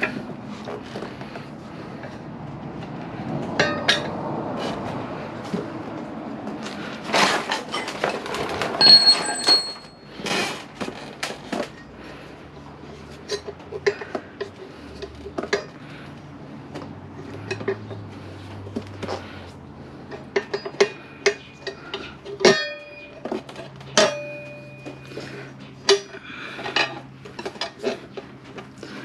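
Steel tire levers clinking and knocking against the motorcycle wheel rim as the tire bead is levered on by hand. Scraping and rubbing in the first ten seconds, then a long series of separate sharp metallic clinks, some of them ringing briefly.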